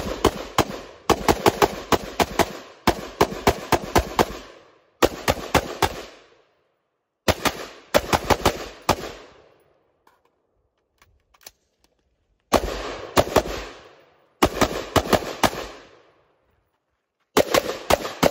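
AR-15-style carbine firing rapid strings of several shots each, every string trailing off in echo, with short pauses between strings and a longer lull about ten seconds in that holds only a few faint clicks.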